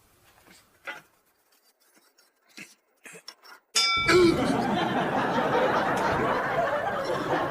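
A few faint small noises, then a short metallic clink about three and a half seconds in, followed at once by a studio audience laughing loudly and steadily.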